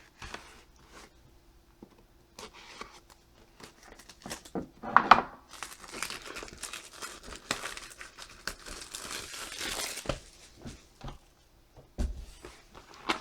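Cellophane shrink-wrap being torn and crumpled off a trading-card hobby box. Scattered light crinkles give way to a loud rip about five seconds in, then several seconds of dense crinkling and a soft thump near the end.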